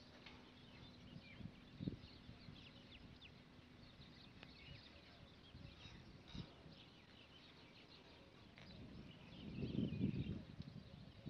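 Faint, scattered chirping of small birds, with a brief low rumble about ten seconds in.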